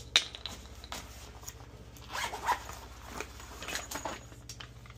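A sharp click, then two bouts of rustling, scraping handling noise as a clamp multimeter and its tangled test leads are picked up and sorted out. A faint steady low hum runs underneath.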